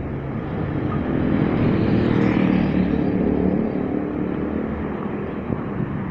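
Street traffic: cars driving close past an intersection. The engine and tyre noise swells as one passes about two seconds in, then slowly fades.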